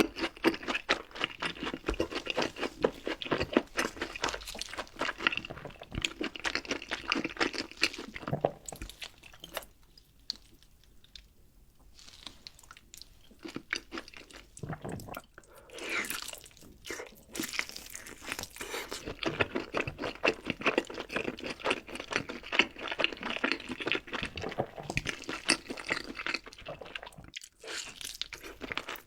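Close-miked eating: food being bitten and chewed with a dense, crackly crunch, easing off for a few seconds about a third of the way in before the crunching resumes.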